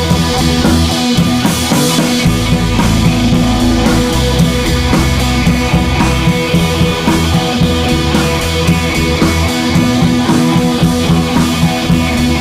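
Background rock music with guitar and drums at a steady beat.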